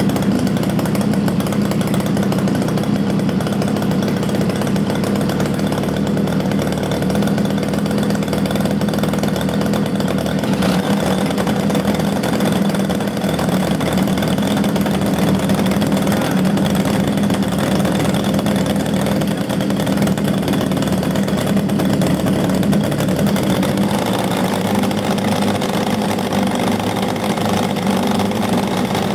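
Small internal-combustion engines of a hybrid-propulsion drone running steadily on a bench-test stand, with a slight change in tone about three-quarters of the way through.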